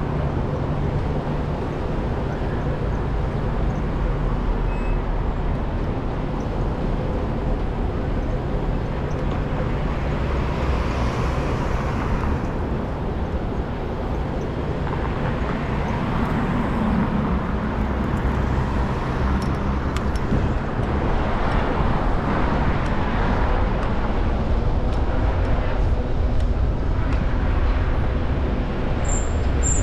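Street traffic with wind rumble over the microphone as the e-bike rides along a city street: a steady low rumble with cars passing.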